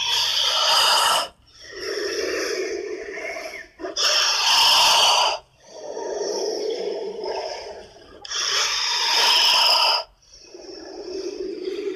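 Giant snake-monster sound effects: three loud, harsh hisses about four seconds apart, with lower, breathy rasping sounds between them.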